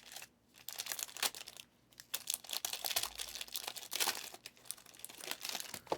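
Trading-card pack wrappers crinkling and tearing, with cards being handled, in irregular crackling strokes.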